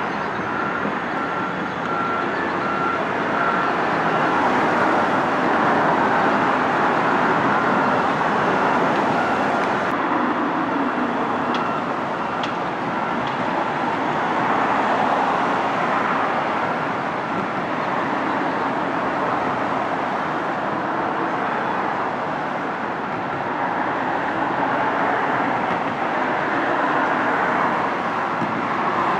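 Steady road traffic noise, with a faint repeated beeping in the first few seconds.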